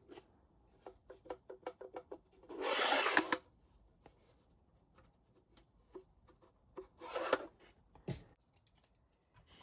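Wooden box parts being handled: a quick run of light wooden clicks, then two short scraping rubs of wood about four seconds apart, and a single knock near the end.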